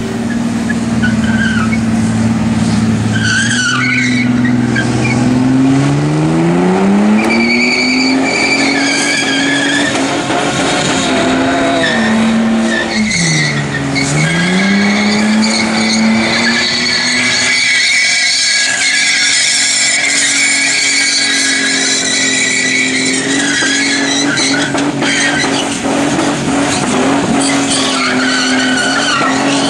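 Ford AU Falcon doing a burnout: the engine is held high in the revs while the rear tyres spin and squeal. The revs climb early on, dip sharply and recover about 13 seconds in, and drop away near the end.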